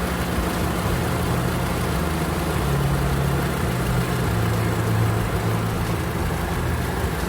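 Car engine idling steadily, with the repaired auxiliary condenser fan for the air conditioning running over it as an even rush of air.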